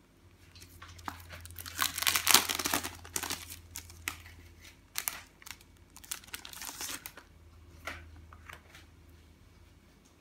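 Clear plastic sleeves of sticker sheets crinkling and rustling as they are handled and slid apart. The loudest stretch comes about two to three seconds in, with a second burst about six to seven seconds in and small crackles between.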